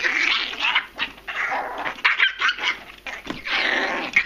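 Teacup chihuahua-terrier mix barking aggressively in a rapid run of harsh bursts as she guards her food bowl from a cat.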